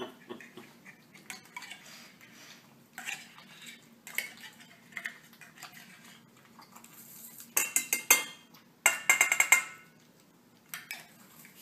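Metal spoon scraping wet cat food out of a small tin can and clinking against stainless steel bowls. Light scrapes and clicks at first, then two runs of loud, rapid clatter about eight and nine seconds in.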